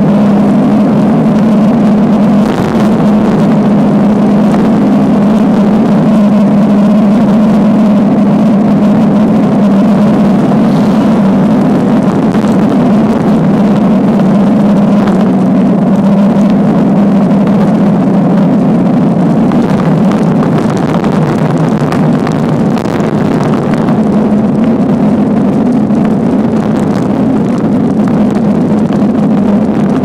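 Wind rushing over the microphone and tyre roar on asphalt during a fast downhill bicycle ride: a loud, steady rushing with a low hum underneath.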